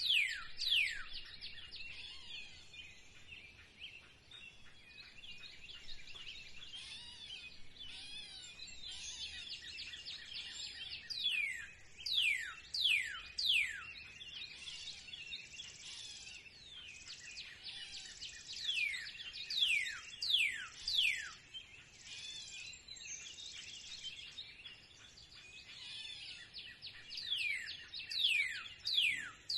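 Birds singing in spring. One bird gives bouts of steeply falling whistled notes, several in quick succession, four times: right at the start, around twelve seconds in, around twenty seconds in, and near the end. Between the bouts, other birds keep up a background of softer chirping.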